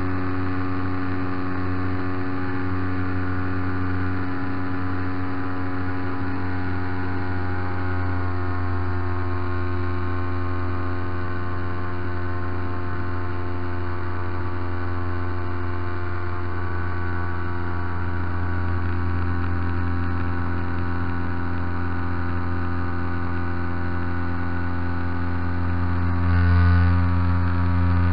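MVVS 116 twin-cylinder petrol engine of a large-scale radio-controlled Piper J-3 Cub running steadily at high power, heard close up from on board, as it tows a glider through takeoff and climb. It swells briefly in loudness near the end.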